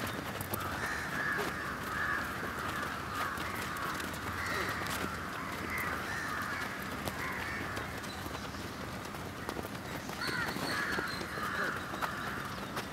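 Many crows cawing over one another without a break, with scattered sharp thuds of footballs being kicked.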